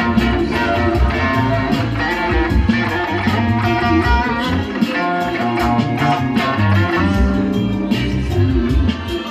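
Electric guitar playing a groove over a backing track with bass and drums.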